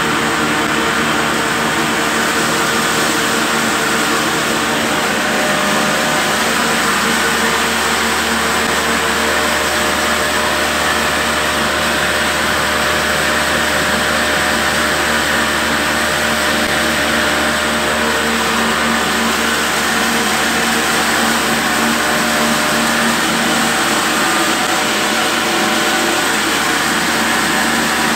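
A belt-driven wheat flour mill (atta chakki) running, powered by a 20 HP three-phase electric motor fed from a solar inverter: a loud, steady hum and whir that holds even throughout.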